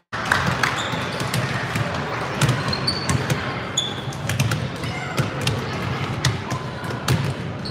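Several basketballs being dribbled and bounced on a hardwood gym floor at once, a steady stream of overlapping, irregular thumps.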